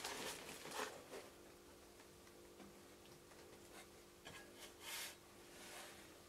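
Faint handling noise of a metal power inverter case being lifted, set down on its box and rubbed by hands: short rustles and scrapes in the first second, then a few brief brushes near the end, over a faint steady hum.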